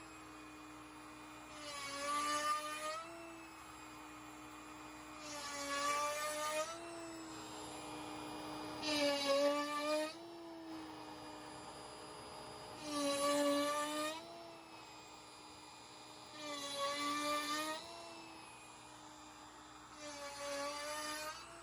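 Router spindle on a LowRider v4 CNC spinning with a steady high whine. Every three and a half to four seconds it grows louder and harsher for a second or so as a 7/8-inch box cove bit carves a half-sphere divot into red oak-veneered hardwood plywood, six cuts in all.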